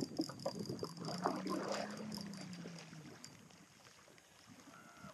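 Kayak out on the water: a few short knocks against the hull, then a low hum that rises slightly and falls away, fading out about three seconds in.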